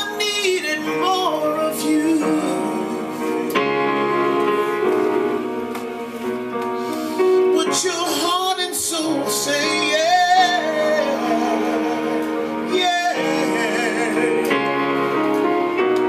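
A woman singing with vibrato and sliding runs, accompanying herself with sustained chords on an electronic keyboard.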